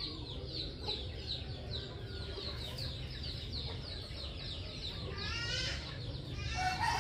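Chickens calling: a fast run of short, high, falling peeps, about four a second, then from about five seconds in louder, fuller calls that rise and bend in pitch, over a low steady hum.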